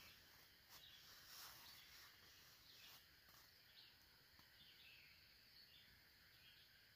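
Near silence, with a few faint, short bird chirps scattered through it.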